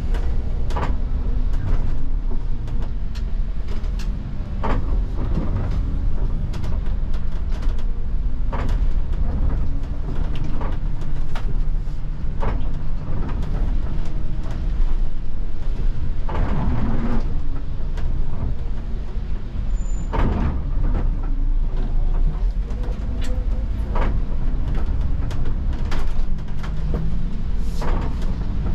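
Iveco Crossway city bus heard from inside its cabin at the front: the engine runs with a steady low drone while the bus drives on wet road, with a short sweep-and-click about every four seconds from the windscreen wiper, and one longer swish about two-thirds of the way through.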